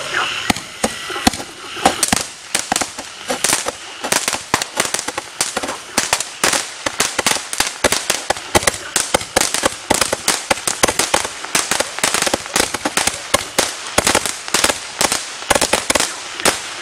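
Lightning Cannon 140-shot firework tube firing its shots in rapid succession: a fast, unbroken string of sharp bangs and crackles, several a second.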